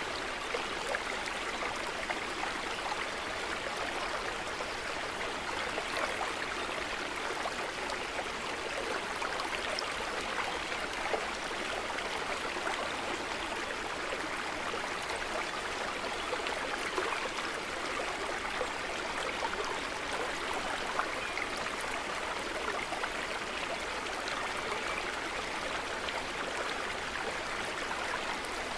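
Stream of running water flowing and babbling steadily, with many small splashes and trickles.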